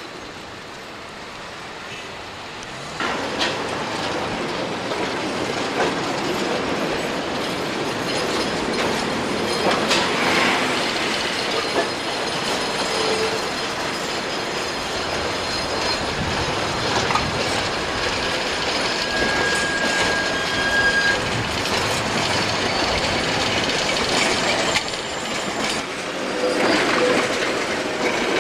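Street trams running on street track: steel wheels rumbling and clattering over the rails, with wheel squeal as they take curves, including a brief high squeal about two-thirds of the way through. Quieter for the first few seconds, then louder from about three seconds in.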